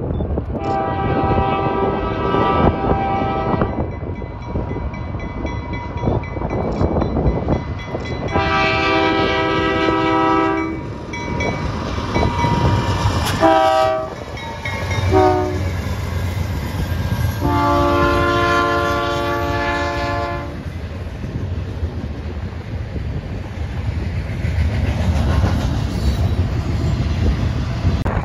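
A CN freight train's diesel locomotive horn sounds long, long, short, long, the grade crossing signal, as the train approaches and passes. The last long blast is lower in pitch than the first ones. After it the locomotives' diesel engines rumble past, with wheels on the rails and wind on the microphone.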